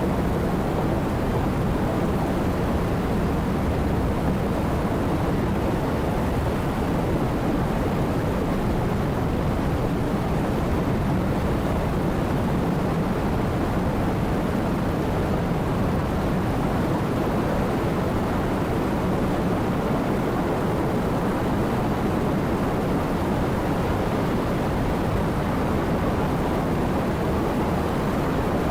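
Steady rain: a continuous, even, low rushing noise that holds at one level throughout.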